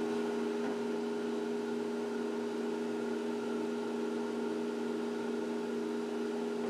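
Steady hum of a machine running at constant speed, several fixed tones over a light hiss, with no change in pitch.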